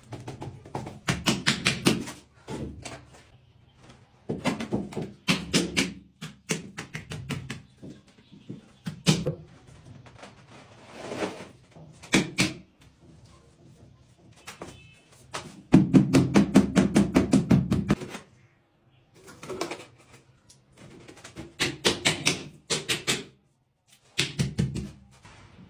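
Repeated runs of quick taps on a large glazed wall tile as it is bedded into the adhesive, each run a second or two long, with a longer, louder run about sixteen seconds in.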